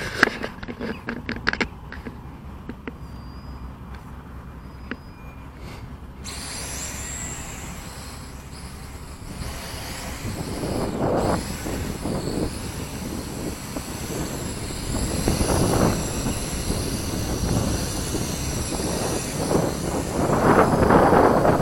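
A few handling clicks, then about six seconds in the NIHUI U807 quadcopter's motors and propellers start, a steady whine of several high tones with hiss. Gusts of wind on the microphone grow louder toward the end.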